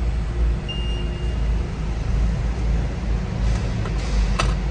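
Car's steady low rumble heard from inside the cabin while driving, with a faint short beep about a second in and a click near the end.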